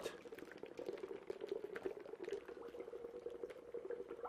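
Dry ice bubbling in warm water in a glass, a faint, steady fizzing with many small pops as the ice gives off the gas that makes the fog.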